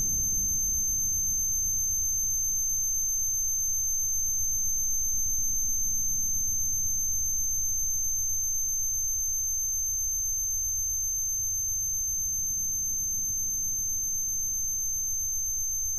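A steady high-pitched ringing tone held over a low rumble: the ear-ringing, tinnitus sound effect that follows an explosion, standing for a deafened listener.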